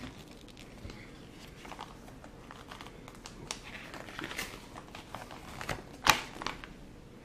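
Paper and plastic packaging being handled by hand, rustling and crinkling in short bursts, with one sharp click about six seconds in.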